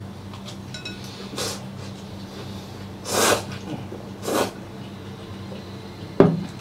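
Noodles slurped from a bowl in three short sucks, about a second and a half, three seconds and four and a half seconds in, the middle one loudest, over a steady low hum. A sharp knock near the end.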